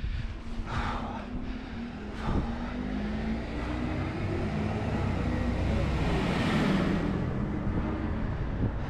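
An engine passing close by, swelling to its loudest about two-thirds of the way through and then fading, over a steady rumble of wind on the microphone.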